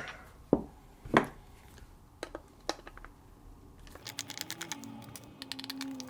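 Small sharp clicks and knocks as a guitar effects pedal is handled and taken apart on a bench, with its press-fit knobs being pulled off. From about four seconds in, a fast run of light clicking.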